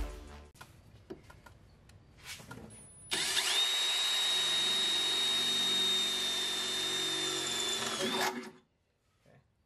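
Power drill drilling into a car's sheet-metal firewall: about three seconds in it spins up with a rising whine, runs at a steady high pitch for about five seconds, then stops.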